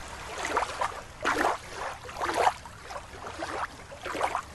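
Water swishing and splashing in short bursts, about one a second.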